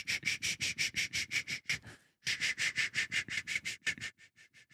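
A person making quick, rhythmic hissing breath sounds, sniffs or short 'sh' sounds, right up against a microphone, about six a second. They break off briefly about two seconds in and grow fainter near the end.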